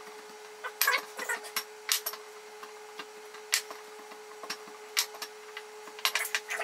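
Wooden rolling pin worked back and forth over chilled, very hard biscuit dough on a countertop, giving irregular knocks and clacks, several in quick succession about a second in and again near the end. A faint steady hum runs underneath.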